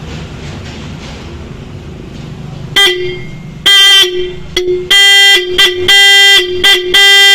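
Roots electric disc horn, its contact points cleaned and its adjusting screw being set. A low buzz for the first few seconds, then about eight toots at one steady pitch, some short and some held for half a second or more.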